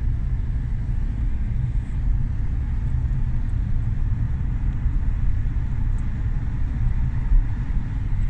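Car driving along at steady speed: a continuous low rumble of engine and road noise.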